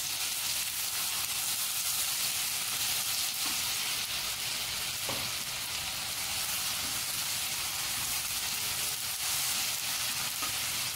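Hot oil sizzling steadily in a non-stick frying pan as cumin seeds and ginger-garlic paste fry, with a silicone spatula stirring through it.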